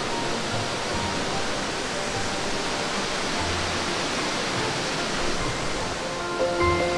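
Steady rush of flowing water from a mountain river or waterfall. Background music comes in near the end.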